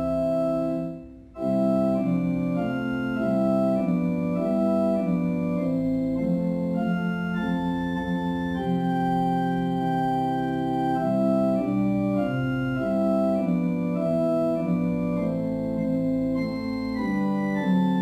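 Organ playing a slow hymn tune in held chords, with a brief dip in the music about a second in before it carries on.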